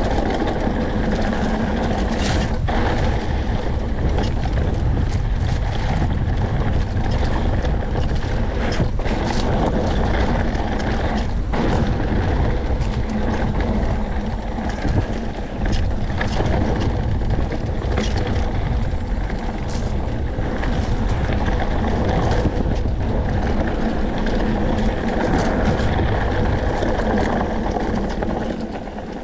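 Mountain bike rolling fast downhill on a loose, rocky dirt trail: steady wind rush on the camera microphone over the rumble of the tyres, with frequent clatters and knocks from the bike over rocks.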